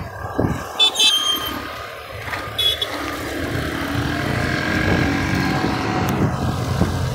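Road traffic of cars and motorcycles, engines and tyres running, heard from a moving vehicle. Two short high-pitched beeps sound about one second and about two and a half seconds in.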